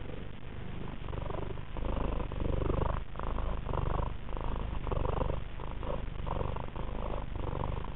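A domestic cat purring right at the microphone, a continuous rumble that swells and eases with each breath, growing louder about two seconds in.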